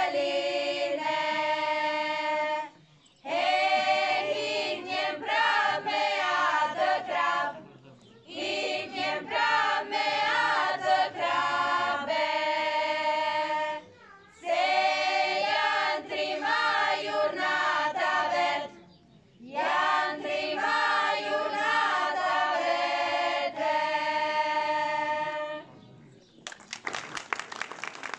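A small group of young women singing together in long phrases with brief breaths between them. The song ends shortly before the close, and the audience breaks into applause.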